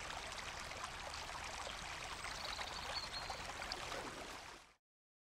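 Stream water rushing over rocks in a steady splashing rush, fading out about four and a half seconds in.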